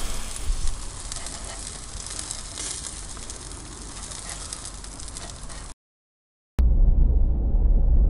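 Meat sizzling on a wire-mesh grill over charcoal. It cuts off abruptly about three-quarters through, and after a short silence the low rumble of a car driving, heard from inside the cabin, comes in.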